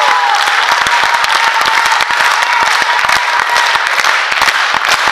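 Audience applauding: dense, even clapping, with a faint steady tone held underneath it for a few seconds.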